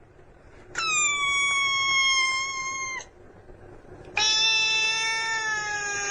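A cat meowing twice in long, drawn-out calls: the first is high and held for about two seconds, and the second is lower and longer, sagging slightly in pitch.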